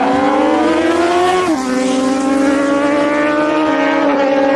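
Honda Fireblade and Kawasaki ZX-10R superbikes' inline-four engines accelerating hard down a drag strip. The engine pitch climbs, drops sharply at an upshift about a second and a half in, then climbs again with another shift near the end.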